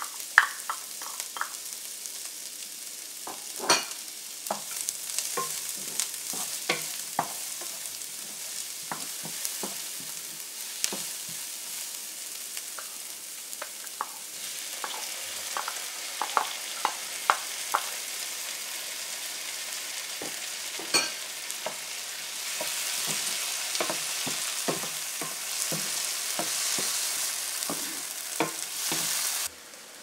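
Chopped onion and garlic frying in vegetable oil in a frying pan: a steady sizzle with scattered clicks and knocks against the pan as the food is stirred and added. Diced tomatoes are tipped in partway through. The sizzle grows louder over the last several seconds, then cuts off abruptly just before the end.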